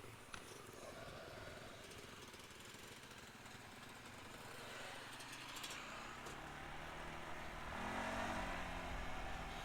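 Off-road vehicle engine running at a low level. An engine note comes in and grows louder over the last few seconds.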